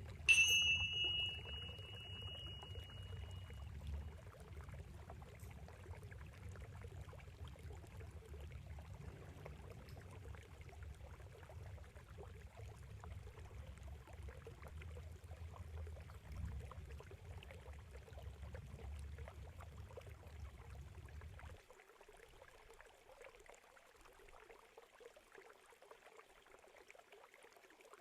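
Water trickling and pouring steadily, with a high chime struck once near the start that rings out for about three seconds. A low rumble underneath stops suddenly about three quarters of the way through.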